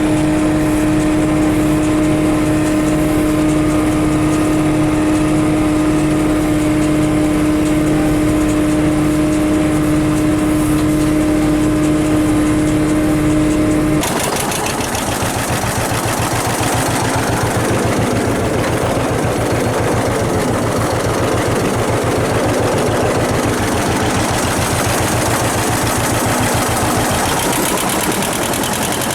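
John Deere 6300 diesel tractor running steadily while pulling a John Deere 328 small square baler, with a steady humming tone over the engine's low pulse. About halfway through the sound changes abruptly to a rougher, noisier machine clatter.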